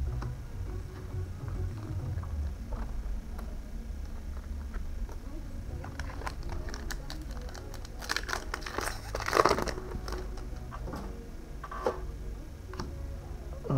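Foil booster pack wrappers crinkling as packs and cards are handled, with scattered light clicks and a louder burst of crinkling about eight to ten seconds in.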